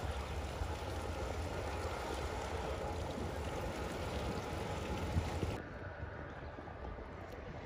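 Motor yacht cruising past, its engines and wake heard as a steady rushing noise over a low rumble. About five and a half seconds in the sound cuts to quieter, duller harbour noise.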